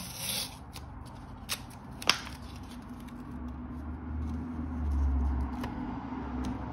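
Light handling noise as painter's masking tape is pressed and smoothed onto a car's painted fender beside the vent, with a few small clicks, one sharp click about two seconds in, and a low rumble swelling about halfway through.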